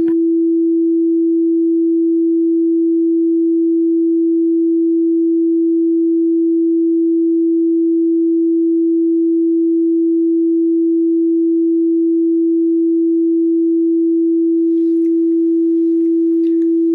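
A steady electronic pure tone held at one unchanging low-mid pitch, with nothing else over it.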